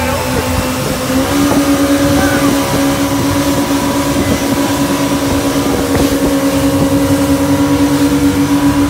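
Jet boat running at speed: a steady engine drone that steps up slightly in pitch about a second in, over a constant rush of water and wind.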